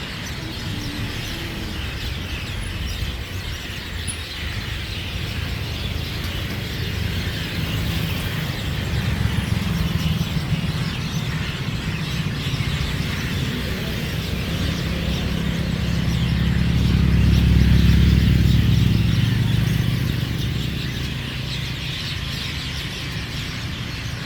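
Many small birds chirping and chattering at once in a continuous chorus. A low hum rises beneath them, loudest about three-quarters of the way through, then fades.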